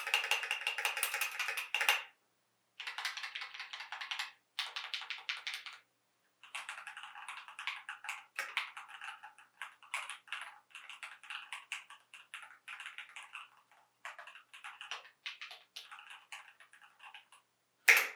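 Typing on a mechanical keyboard fitted with Keychron Camo Wheat switches, as a switch sound test. It opens with a dense, fast run of keystrokes for about two seconds. Then come shorter runs with brief pauses between them, and a long stretch of steady typing with separate clicky strokes.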